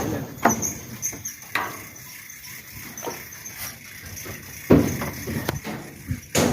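Irregular sharp knocks and clicks with a heavier thump about five seconds in: a hooked fish being reeled in and landed, with tackle and fish knocking about.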